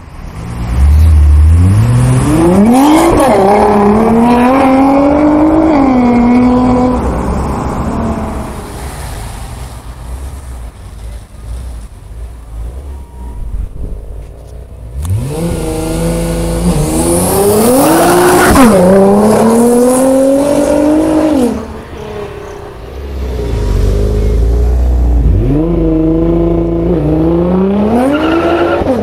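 Nissan GT-R's twin-turbo V6 through a GReddy aftermarket exhaust, making three hard launch-control starts and full-throttle pulls. In each, the engine note rises steeply and drops back at quick upshifts.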